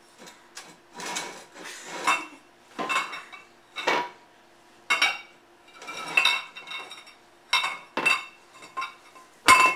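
Dog food bowls clanking and clinking against each other and the tile floor as a baby handles them: a dozen or so irregular knocks, each with a brief ring, the loudest near the end.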